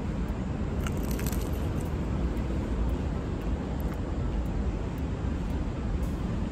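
Steady low outdoor background rumble, with a few faint crisp clicks about a second in.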